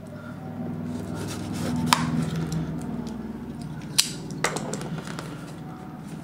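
Cardboard box being opened by hand: scraping and rustling of the packaging, with sharp knocks about two seconds and four seconds in.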